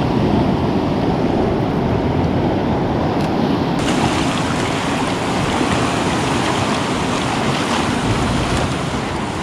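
Heavy sea swell surging and washing over the shore rocks: a steady rush of surf. The hiss turns brighter about four seconds in.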